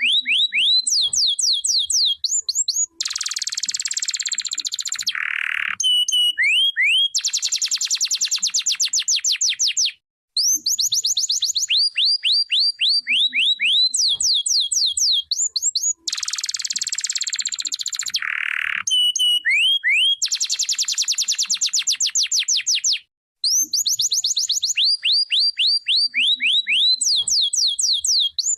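Domestic canary singing, with runs of rapid, high falling whistled notes alternating with fast buzzing rolls. The same song sequence repeats about every 13 seconds, with a brief break about 10 seconds in and again about 23 seconds in.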